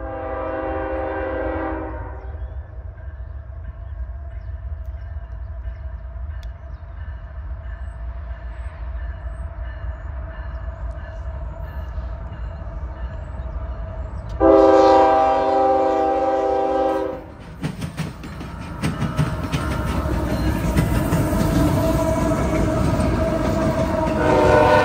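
Multi-chime horn on a CSX diesel freight locomotive: a blast at the start and a longer one of about two and a half seconds about 15 s in, sounding again near the end. From about 18 s the train passes close, with engines rumbling and wheels clattering over the rail joints.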